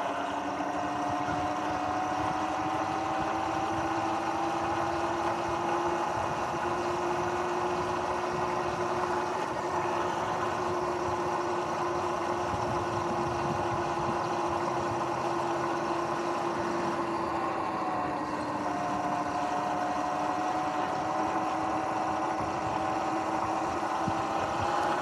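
Sur-Ron electric dirt bike's motor and chain drive whining steadily at cruising speed, the pitch drifting gently with speed and dipping about two-thirds through, over tyre and wind noise. The chain is one the rider finds a bit rough and due for maintenance.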